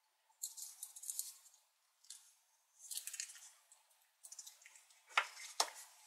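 A small leather sheath and a Victorinox Classic SD pocketknife handled in the hand, with short bursts of leather rubbing and scraping as the knife is drawn from the sheath. Near the end come two light knocks about half a second apart, the sheath and the knife set down on a wooden tabletop.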